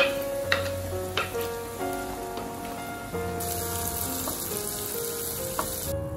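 Chopped red onion sizzling as it fries in a pan; the sizzle comes in a little past halfway and cuts off suddenly near the end. Soft background music with held notes plays throughout, and a few sharp clicks come in the first second or so.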